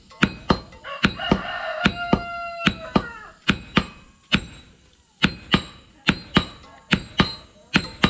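Hand hammer and sledgehammer striking red-hot blade steel on an anvil in alternating blows, about three a second, with a short pause near the middle. A rooster crows about a second in.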